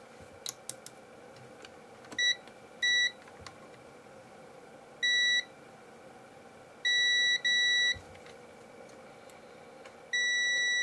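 A UNI-T digital multimeter's continuity beeper sounds in about six short and longer steady beeps, each a single high tone. Each beep means the probes are touching points that are connected, here used to find which motherboard contacts are ground. Faint ticks from the probe tips are heard about half a second in.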